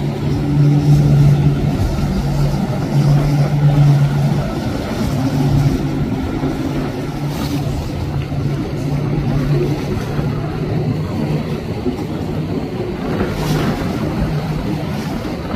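Motor yacht engines droning steadily at speed, over the rushing of wake water and wind.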